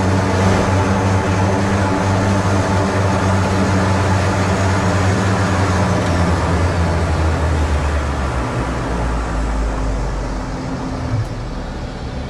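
Twin engines of a Grumman Mallard amphibian idling on the water with the propellers turning, a steady drone that drops lower in pitch and eases off about eight seconds in.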